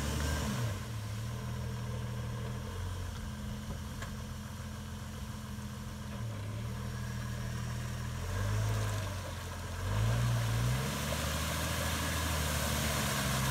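1996 Jeep Grand Cherokee ZJ's engine running at low revs in a muddy water puddle, revving up briefly twice, about eight and ten seconds in, as it works to drive through. Near the end, water hisses and splashes from the spinning front tyre.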